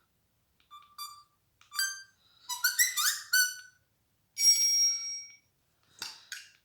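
Samsung GT-C3590 mobile phone playing short electronic notification tones: a few separate beeps, then a quick run of rising chirps, then one held bright tone about four and a half seconds in.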